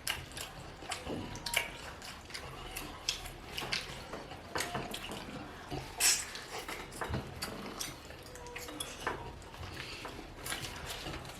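Utensils clinking and scraping against dishes during a meal: scattered, irregular light clicks with a few louder knocks, one of the sharpest about six seconds in.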